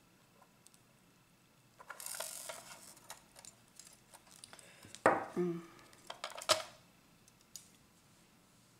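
Thin craft wire and small tools being handled: a rustle about two seconds in, then a sharp click with a brief ring about five seconds in and another sharp click about a second and a half later.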